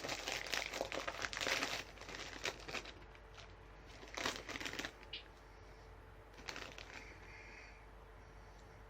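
Plastic snack packet crinkling and rustling as it is handled and torn open. The crinkling is densest over the first three seconds, with shorter rustles about four and six seconds in.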